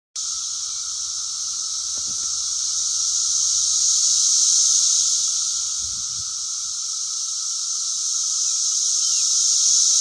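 Really loud chorus of Brood X periodical cicadas: a dense, steady, high-pitched buzzing drone with a lower hum beneath it, swelling and easing slowly in waves.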